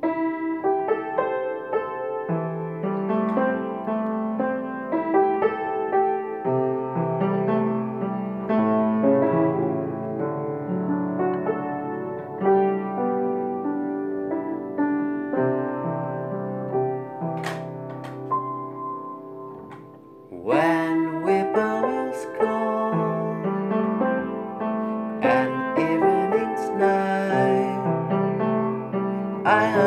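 Upright piano playing slow chords and melody. About two-thirds of the way through, a man's voice joins the piano, singing softly with no clear words.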